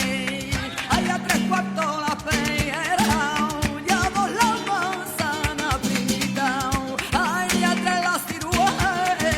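Flamenco song: a singer's wavering, ornamented voice over a flamenco guitar played with quick, sharp strokes.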